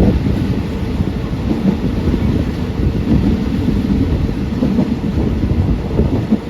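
A passenger train running along the track, heard from on board: a steady low rumble with irregular rattling.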